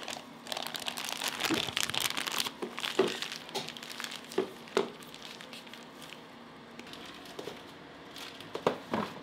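Thin plastic bag crinkling and rustling as it is pulled up and twisted closed around a load of scone mixture, dense for the first few seconds and then in scattered rustles. There are a few sharp knocks near the end.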